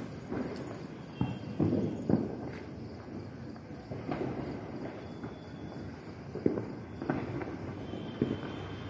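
Distant firecrackers going off at irregular intervals, a few sharper pops among duller thumps.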